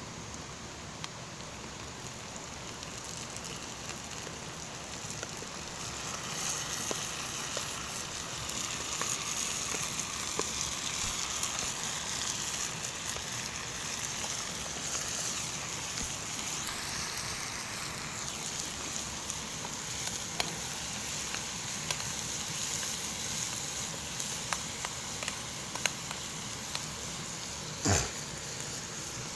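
Beef sizzling as it fries in a pan, a steady hiss with small crackles and a sharp knock near the end.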